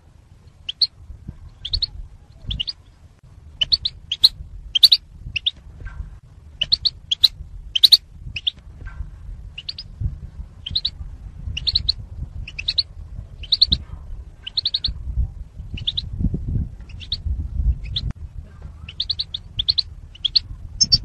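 European goldfinches giving short, repeated chirping calls, each a quick cluster of two or three high notes, coming one or two a second, with a low rumble underneath. It is taken for a hen goldfinch's chatter that sets the cock birds singing.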